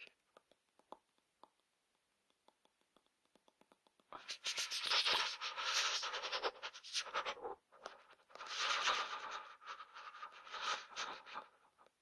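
A person shivering from the cold: a run of rapid, faint clicks of chattering teeth, then two long, shaky hissing bursts, starting about four and eight seconds in.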